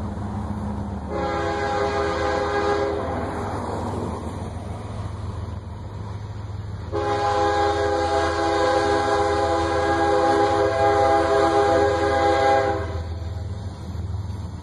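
Freight locomotive's multi-chime air horn sounding two blasts as it approaches: a short one about a second in, then a long one of about six seconds starting near the middle. A steady low rumble runs underneath.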